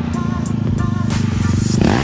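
A music track with a beat plays over a sport ATV's engine, which gets louder toward the end as it revs.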